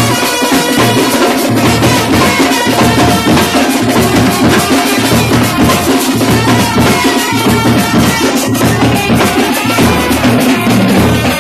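Drum band of large double-headed bass drums and other drums beating a loud, dense, continuous rhythm.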